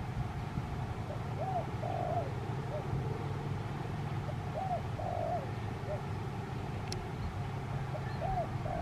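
A dove cooing a short three-note phrase, repeated about every three seconds, over a low steady background rumble.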